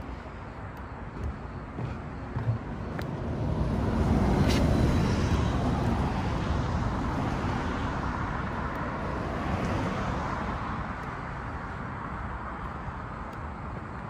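Road traffic: a vehicle passes on a road alongside, swelling a few seconds in and then slowly fading away.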